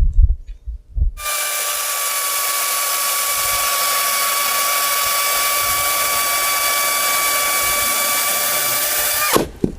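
DeWalt DCM575 FlexVolt cordless chainsaw cutting straight down through a log, a steady high electric whine that starts about a second in. Near the end it winds down in pitch and stops.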